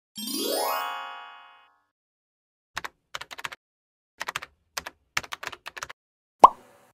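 Added sound effects: a rising whistle-like swoop that fades, then bursts of typewriter-style key clicks as on-screen text types in, and one sharp pop near the end.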